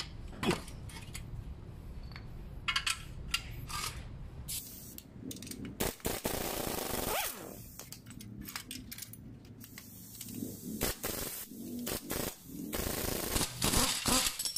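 Impact wrench running in two bursts, about midway and near the end, spinning the threaded rods of a coil-spring compressor to release the spring onto a rebuilt MacPherson front strut. Short metallic clinks of tools come in between.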